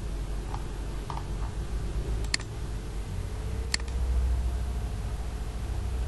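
Two sharp computer mouse clicks, about a second and a half apart, over a low steady hum.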